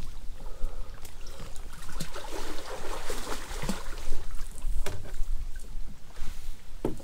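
Water splashing and sloshing around a person moving and swimming in a river, with wind rumbling on the microphone.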